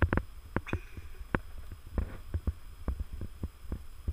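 A man chugging a can of beer: irregular swallowing gulps, a few every second, over a steady low hum.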